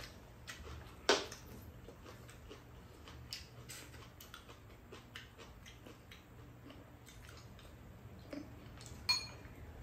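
Two people eating a stew: spoons and chopsticks clicking lightly against ceramic bowls, with chewing, over a low steady hum. A louder sharp sound comes about a second in and again near the end.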